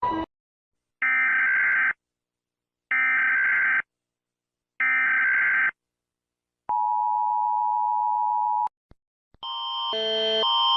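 Emergency Alert System tones: three data bursts of screeching modem-like tones, each about a second long with a second's gap between them, then a steady two-tone attention signal for about two seconds. About nine seconds in, a different alarm starts, two pitches alternating every half second and getting louder.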